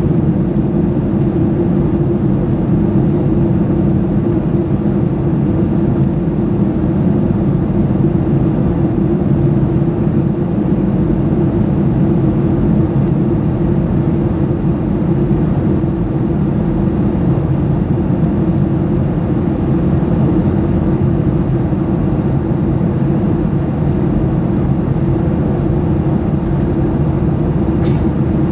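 Steady in-cabin noise of a Boeing 737-800 in flight: a low, even drone of its CFM56 turbofan engines mixed with airflow rushing past the fuselage, heard from a window seat behind the wing.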